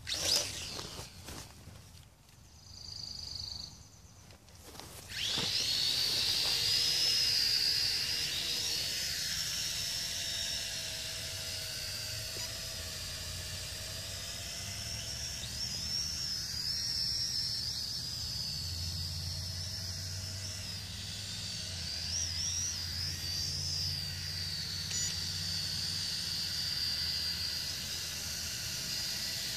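Mould King Super S 33041A toy quadcopter's motors and propellers spinning up about five seconds in, then whining at a high pitch that wavers as it hovers. A few knocks come before it starts.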